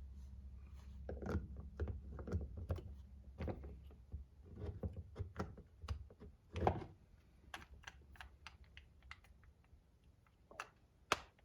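Irregular light clicks, taps and knocks of small metal parts and hand tools being handled during RC transmission reassembly, with a steady low hum underneath that fades out about seven seconds in.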